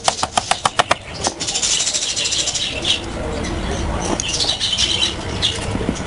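Quick, light hammer taps on a small nail being driven through a particleboard lid, about seven sharp taps a second over the first second, followed by a high hiss twice.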